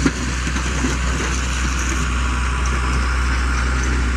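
LiuGong 414 motor grader's diesel engine running steadily at close range as the grader's blade pushes gravel along the roadbed.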